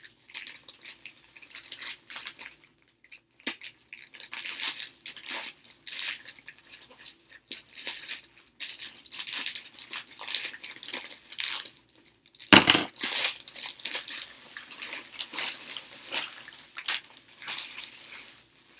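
Scissors snipping open a plastic poly mailer, with the plastic crinkling and rustling in irregular bursts, and one louder knock about two-thirds of the way through.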